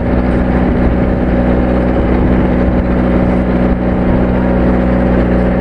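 Boat engine running at a steady cruising speed, a constant drone with a churning wash of noise and no change in pitch.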